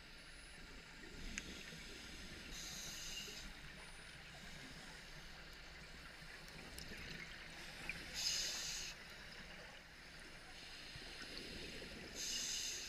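Scuba diver breathing through a regulator, heard underwater: three short hisses of inhalation about five seconds apart, with the low rumble of exhaled bubbles between them.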